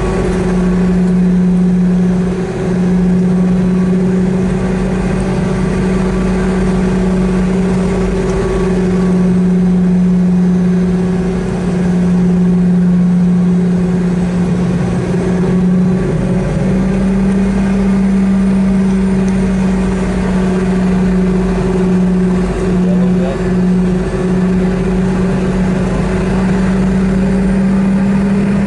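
Boeing 717-200 cabin beside its tail-mounted Rolls-Royce BR715 turbofan at taxi power: a loud, steady engine drone with a low hum under it, creeping up slightly in pitch from about halfway through.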